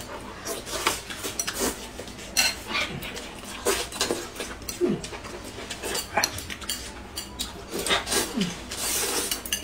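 Two people eating noodles with chopsticks: noodles slurped and chewed, with chopsticks clicking and scraping on ceramic plates. A few short falling vocal sounds come through, and the slurping thickens near the end.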